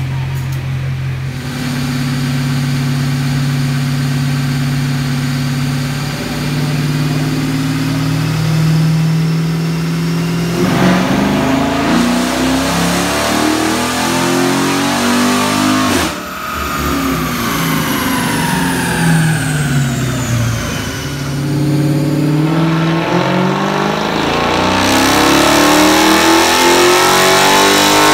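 A 2013 Chrysler 300 SRT8's 6.4-litre 392 Hemi V8, breathing through a K&N cold-air intake and an SLP Loudmouth cat-back exhaust, running under load on a chassis dyno. The revs climb slowly, then the engine goes to a hard, louder pull about ten seconds in. The throttle is cut at about sixteen seconds and the revs fall away, then the revs climb again toward the end.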